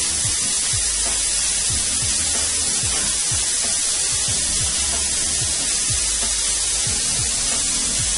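Emson electric pressure smoker's release valve venting a loud, steady hiss of hot steam and smoke after cooking. The owner says it builds no real pressure, only hot, steamy smoke.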